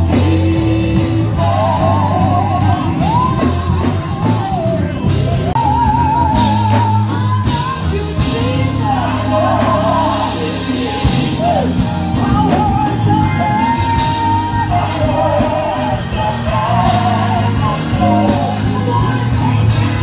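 Live gospel music: a solo singer with strong vibrato over a band with a steady bass line.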